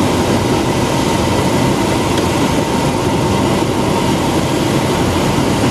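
Cessna 172 Skyhawk's piston engine and propeller running steadily, heard from inside the cockpit as a dense, unbroken drone.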